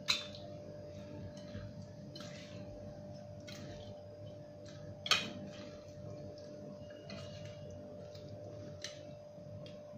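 Hand mixing marinated fish in a steel bowl: faint wet handling with a few light clicks against the steel, the clearest about five seconds in, over a faint steady hum.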